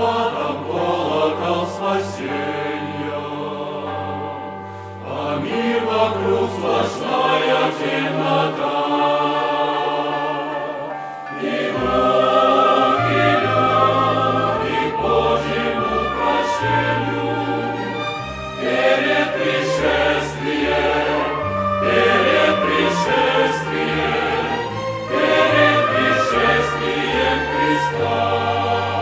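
Choir and chamber orchestra performing a sacred song, with sustained chords over held bass notes.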